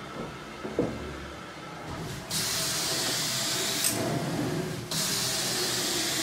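Carpet extraction wand spraying and sucking on the carpet, with a loud hiss that starts about two seconds in, drops for about a second, and then comes back.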